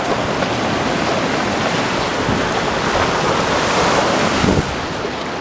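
Surf washing up the beach, with wind blowing on the microphone; the wash swells for a few seconds and falls off sharply a little over four seconds in.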